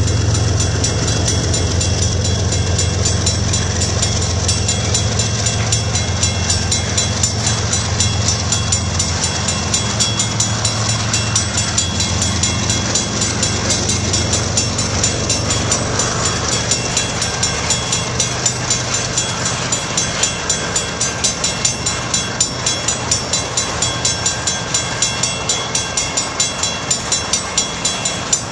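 Freight cars rolling past a grade crossing, with a low rumble that eases off over the first dozen seconds. The crossing bell rings in a fast, steady rhythm throughout.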